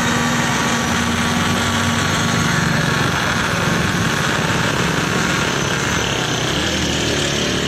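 Electric countertop blender motor running steadily, blending grapes and milk into a milkshake.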